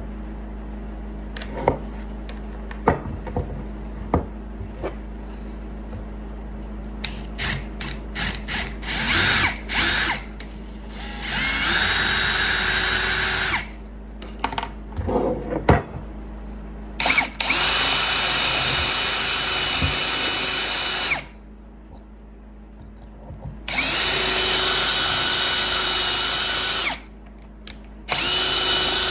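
Electric drill run in several bursts of a few seconds, each spinning up with a rising whine to a steady high pitch and then stopping. Handling knocks and clicks come before the first run.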